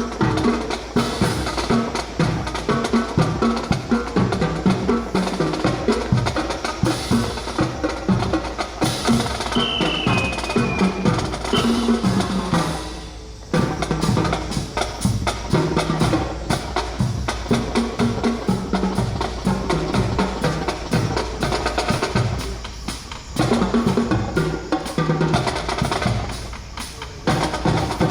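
Music with a steady drum beat, dipping briefly in loudness about 13 seconds in and again about 23 seconds in.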